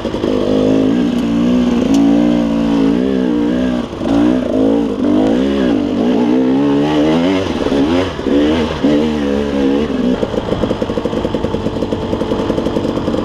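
KTM 300 two-stroke dirt bike engine under way, its revs rising and falling again and again with the throttle. After about ten seconds it settles into a steadier, lower-pitched run.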